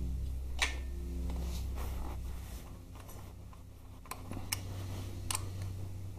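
Allen key and Harley-Davidson gear-shift lever clicking metal on metal as the lever's pinch bolt is worked: one sharp click about half a second in, then three lighter clicks from about four seconds in, over a steady low hum.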